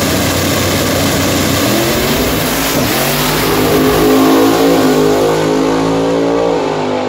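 A drag-racing car's engine revving hard: its pitch climbs about two seconds in, is held high for a few seconds, then dips slightly near the end.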